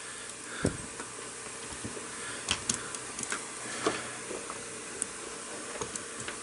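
Light plastic clicks and taps from handling a plastic transforming robot figure, the Ocular Max Terraegis, as its arms are posed: a dull knock about half a second in, then scattered light clicks. A steady hiss lies underneath.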